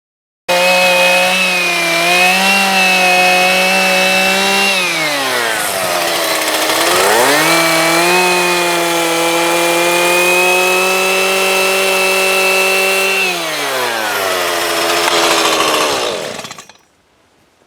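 Carving chainsaw running at high revs, cutting in suddenly about half a second in. Around five seconds in it slows sharply and climbs back to full speed, then near the end it drops to a low idle and stops.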